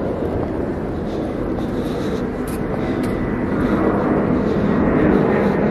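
Night-time city street ambience: a steady low rumble of distant traffic, growing a little louder in the second half.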